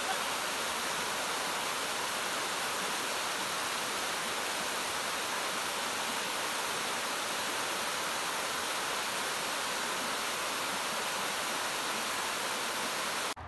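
Mountain stream cascading down rock ledges in a narrow waterfall: a steady, even rush of water that cuts off suddenly near the end.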